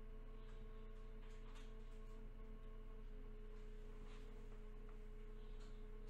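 Inside a Joshin Electric Railway 7000 series electric train: a steady low rumble with constant electrical humming tones and a few faint ticks.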